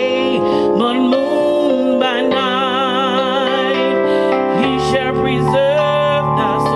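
A woman singing slowly into a microphone, holding long notes with strong vibrato over sustained keyboard chords.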